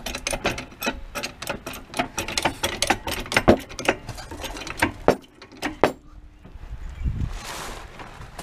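A run of irregular metallic clicks and taps from hand tools being worked, stopping about six seconds in, followed by a softer rustle.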